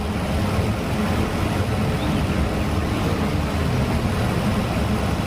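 Steady rush of running, splashing water, as a muddy toy is washed in it.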